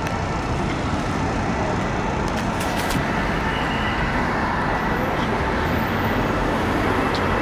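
Steady city road traffic noise, an even, unbroken hum of vehicles.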